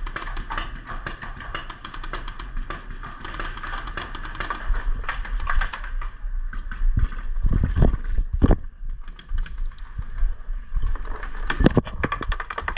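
Paintball markers firing in rapid strings, sharp pops coming several times a second, with a few low thumps in between.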